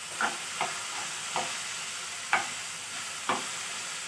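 A steel slotted spatula stirring softened tomatoes and onions in a black kadai, clinking sharply against the pan about six times over a steady faint sizzle of frying.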